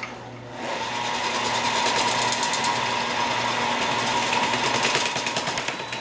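A restored, roughly 70-year-old wiring-harness taping machine speeds up about half a second in. Its rotating head runs fast, wrapping tape around a harness with a steady whine and a rapid fine clatter, then slows near the end.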